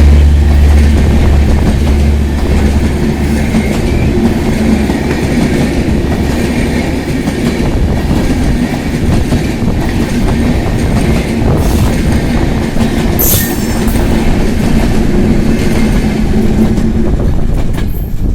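Express passenger train running past on the rails, a loud steady rumble of wheels and wagons with some clickety-clack, easing off near the end.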